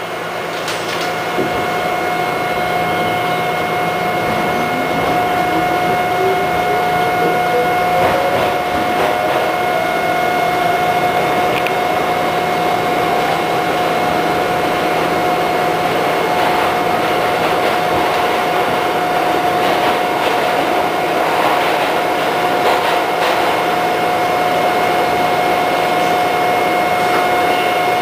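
Westinghouse R68 subway train's traction motors whining up in pitch as it pulls out of the station, levelling off to a steady whine about ten seconds in, over the steady rumble of wheels on rail.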